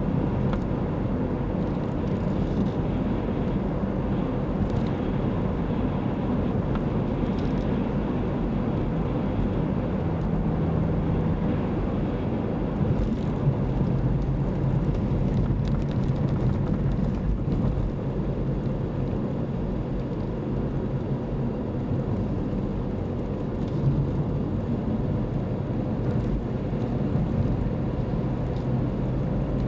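Car engine and tyre noise heard from inside the moving car's cabin, steady throughout, with the engine note shifting in pitch a few times.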